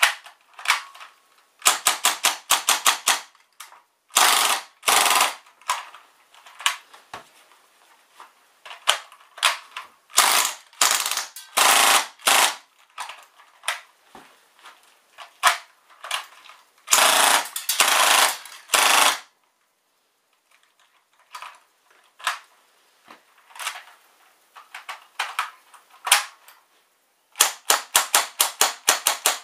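Well MP5K gas blowback airsoft gun, a cheap China-made copy of the Maruzen MP5K, firing in rapid full-auto bursts and some single shots. Each shot is a sharp crack of gas and cycling bolt, and in the longest bursts the shots run together. There is a brief silent pause a little after twenty seconds in.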